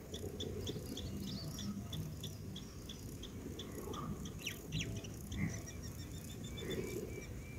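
An insect chirping steadily in short high pulses, about four a second, over a low rumble. Two brief rising calls come about halfway through.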